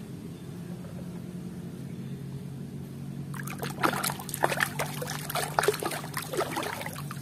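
Water sloshing and splashing in a plastic basin as a hand swishes a toy through it, irregular splashes starting about three seconds in, over a low steady hum.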